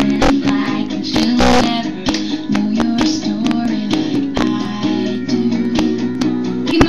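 Recorded pop-rock song playing, with strummed guitar over a steady drum beat.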